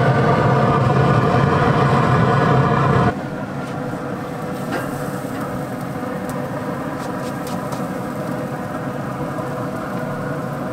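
Pit Boss Austin XL 1000 pellet grill running on high: a loud steady mechanical hum that cuts off abruptly about three seconds in. After that there is a quieter steady hum with a few light clicks.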